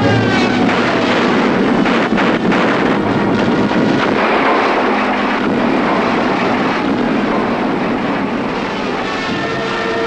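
Propeller aircraft engines droning over dense battle noise, with a couple of sharp bangs about two seconds in.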